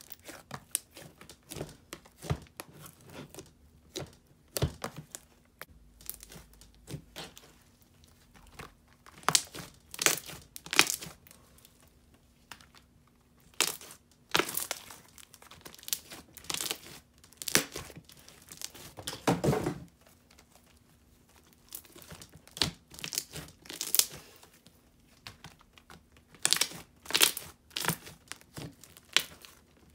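Fluffy slime, a non-deflating, shaving-cream-free type, being squished, pressed and stretched by hand, giving irregular sticky crackles in short clusters.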